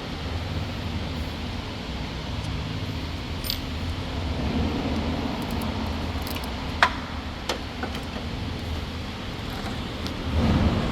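Steady low mechanical hum, with a few small sharp clicks as the eyeball camera's mounting ring is handled behind the grille.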